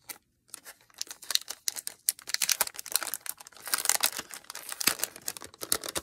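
Clear cellophane sleeve crinkling as it is opened by hand and a stack of paper ephemera is slid out, with the papers rustling. It starts about half a second in and is busiest in the middle.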